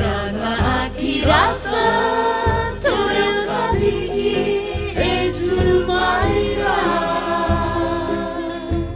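Background music: a song in Cook Islands Māori, with voices singing a gliding melody over a steady bass line.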